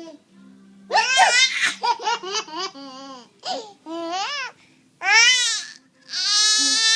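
Baby boy laughing in a string of high-pitched squealing bursts whose pitch swoops up and down. The loudest bursts come about a second in and near the end.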